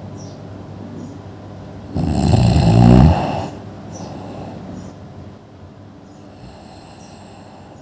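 A person snoring: one loud snore about two seconds in, lasting over a second, with a high whistle riding on it. Softer breaths follow, and another whistling breath comes near the end.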